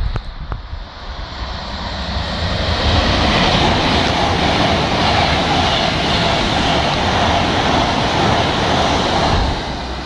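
Class 390 Pendolino electric train passing at speed close by. A rush of wheel and air noise swells as it approaches, stays loud and steady for about six seconds as the carriages pass, then drops off sharply near the end as the last coach clears.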